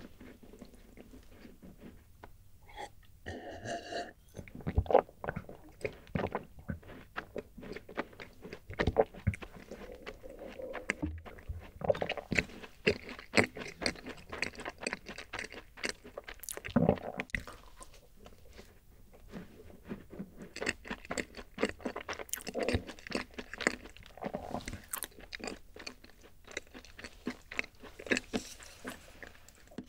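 Close-miked crunching and chewing of a rice-oat cookie: a steady run of crackly bites and chews, easing off briefly about two-thirds of the way through.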